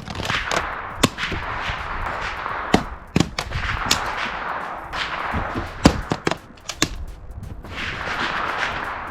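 A string of sharp, irregularly spaced cracks and knocks, about ten of them, the loudest about six seconds in, over a steady rushing noise.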